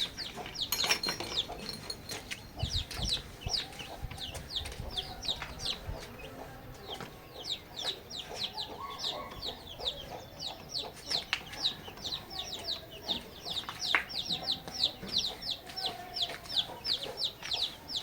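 Chickens calling: a rapid, steady run of short high falling peeps, about three a second, over softer lower clucking. A few low knocks and rumbles come a few seconds in.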